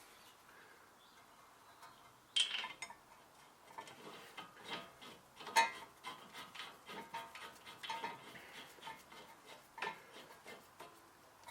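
Irregular metallic clinks and light rattling as steel brake hardware, the caliper mounting bracket and its bolts, is handled and fitted by hand, with a sharp clink about two and a half seconds in and another a little past halfway.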